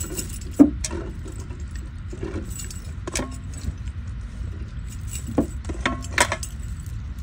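Chunky metal bracelets and rings jangling and clinking against an aluminium pot as hands pick through boiled fish to pull out the bones. The clinks come as scattered light clicks over a low steady rumble.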